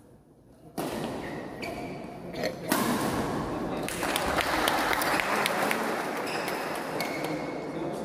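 Badminton rally: sharp racket strikes on a shuttlecock and short squeaks of shoes on the court, starting suddenly about a second in.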